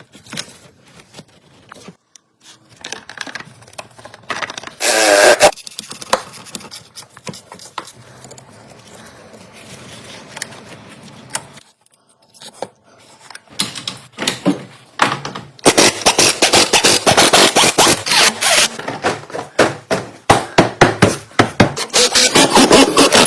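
Hand tools working on a car engine during water pump and drive belt reassembly: scattered metal clicks and scrapes, a short loud rasp about five seconds in, then a fast run of clicks over the last several seconds.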